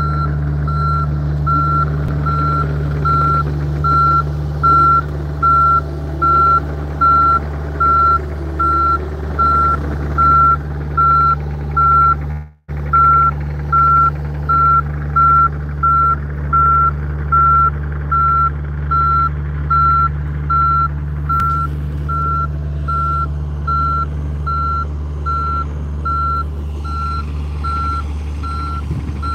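John Deere compact excavator's diesel engine running steadily while its travel alarm beeps at an even pace, about one and a half beeps a second, as the machine moves on its tracks. The audio drops out for an instant partway through.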